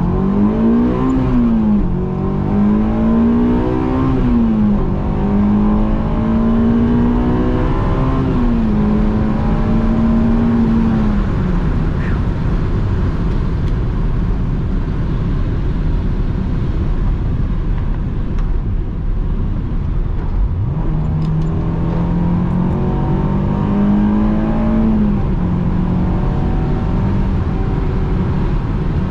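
Honda S2000's JDM F20C four-cylinder engine heard from inside the cabin with the soft top up, accelerating hard through the gears. The revs climb and drop back at each upshift in the first few seconds, then hold steady. About eleven seconds in they fall away as the car coasts, and they climb again through more shifts about twenty seconds in.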